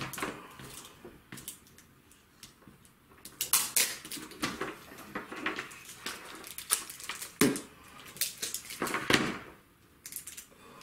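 Duct tape pulled off the roll and torn in a string of short, rasping rips, with small handling clicks; the loudest rips come in the second half.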